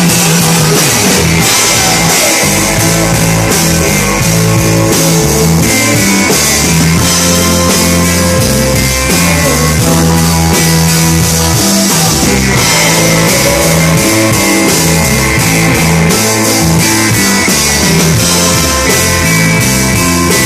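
Live rock band playing loudly: electric guitars, including a Telecaster-style guitar, over bass guitar and a drum kit, at a steady level.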